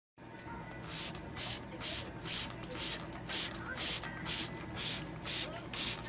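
Male Eclectus parrot bathing in its water bowl: repeated short splashes of water, about two a second, as it dips and flaps its wings.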